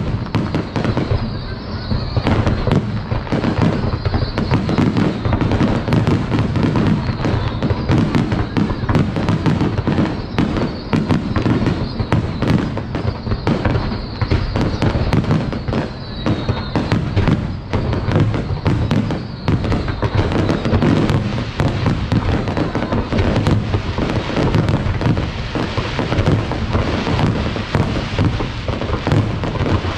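Aerial fireworks display: a dense, unbroken run of shell bursts and crackles with a heavy low rumble.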